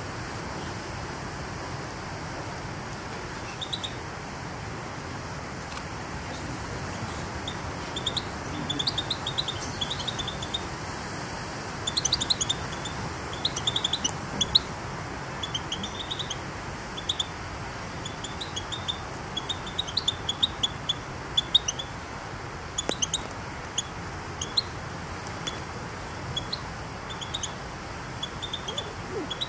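Small birds chirping: many short, high notes in quick clusters, starting a few seconds in and growing busier about twelve seconds in, over a steady low background noise.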